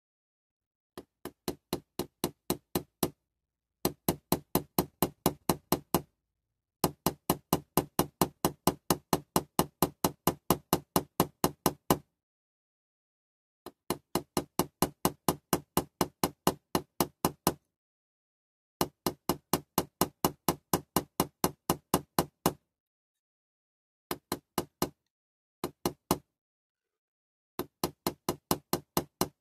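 Small hammer tapping rapidly on a die-cast Dinky Toys Coles mobile crane, peening over a rivet. Runs of light, even taps, about four a second, stop and start again after short pauses.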